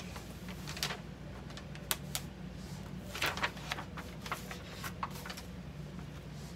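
Paper sublimation transfer being peeled off a freshly pressed glass cutting board: crinkling and rustling in short irregular bursts, with a few light clicks of the glass board being handled.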